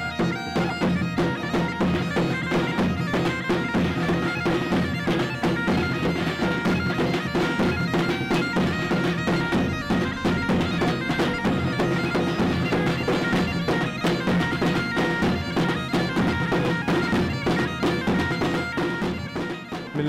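A bagpipe and drums playing a tune together: the bagpipe's chanter melody runs over a steady drone, with frequent drum strokes throughout.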